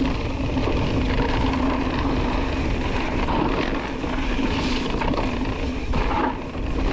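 A mountain bike rolling fast down a dirt singletrack. Wind rushes over the camera's microphone, together with steady tyre and drivetrain noise from the trail.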